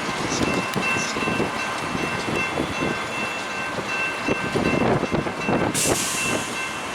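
Wind buffeting the microphone in an irregular low rush, with faint steady high tones behind it and a brief hiss about six seconds in.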